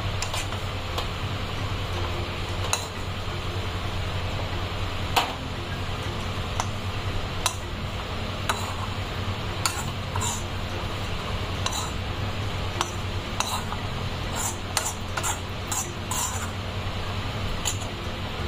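Kitchen utensils clinking and tapping now and then as fried gram-flour and chilli fritters are taken out into a bowl, over a steady low hum. The clinks come more quickly near the end.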